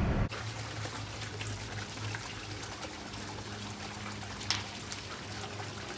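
Water trickling steadily into a garden pond, with one brief louder noise about four and a half seconds in.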